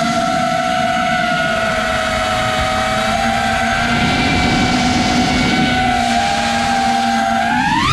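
FPV quadcopter's four 2306 1700 kV brushless motors on 6S spinning Nazgul 5140 props, a steady whine with wind rush over the onboard camera's microphone. Near the end the whine rises sharply in pitch as the throttle is pushed up.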